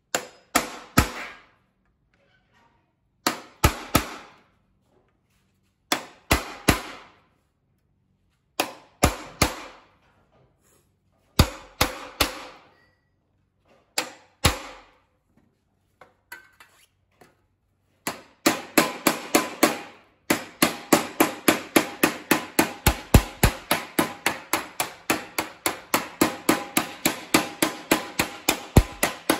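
Steel hammer striking a chisel held against a thin steel body panel on a steel bench plate, with ringing metallic blows in groups of two or three every few seconds. From about two-thirds of the way in, the hammer strikes the panel edge directly in a fast, even run of about four blows a second.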